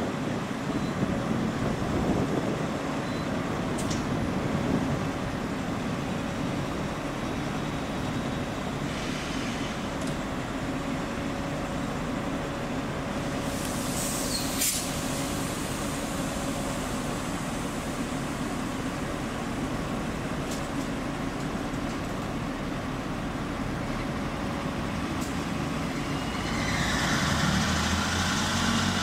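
MEDWAY electric locomotive running slowly away through a railway yard, a steady hum with a thin steady whine over it. About halfway a brief high squeal cuts through, and near the end a louder rush of noise rises.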